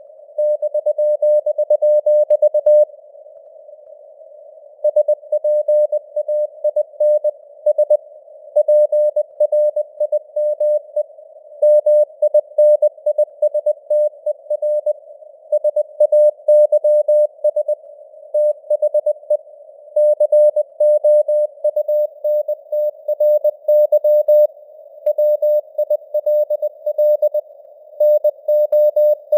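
Morse code (CW) sent at 20 words per minute as a single steady tone keyed on and off in quick dots and dashes, with short pauses between words. It plays over a narrow band of simulated radio hiss.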